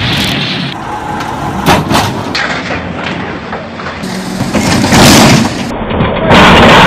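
Heavy machinery noise with several loud crashes and booms, the sound cutting abruptly from one recording to the next.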